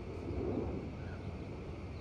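Outdoor neighbourhood ambience: a steady low rumble and hiss, with a brief louder swell about half a second in.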